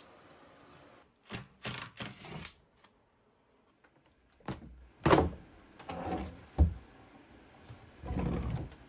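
Knocks and thumps of a heavy epoxy-coated plywood tabletop being lifted and flipped over on a paper-covered workbench: a few quick knocks about a second in, louder thumps around five and six and a half seconds in, and a longer scraping noise near the end as the slab slides across the bench covering.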